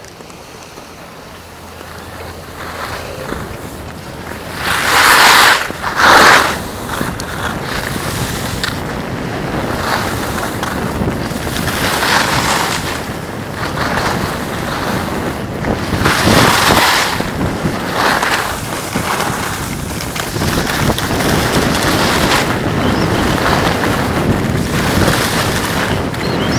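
Wind rushing over the microphone and skis hissing and scraping over packed snow on a downhill ski run, swelling and fading every few seconds, loudest in two surges about five and six seconds in.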